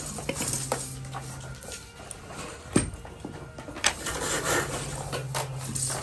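Handling of plastic wall socket plates: a few sharp clicks, the loudest nearly halfway through, over a steady low hum that drops out for a couple of seconds in the middle.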